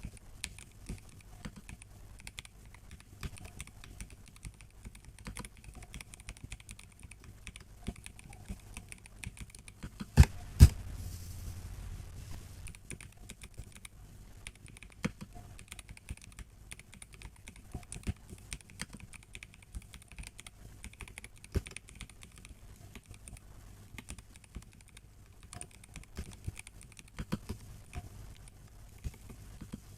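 Typing on a MelGeek Mojo84 plastic-case mechanical keyboard with tactile brown switches: a steady stream of irregular key clicks, with two much louder key strikes about ten seconds in.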